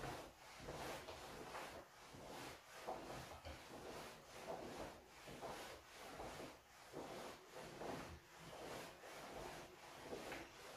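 Faint rustling of a cotton karate gi with each swing of the arms and body, repeating in an even rhythm about twice a second.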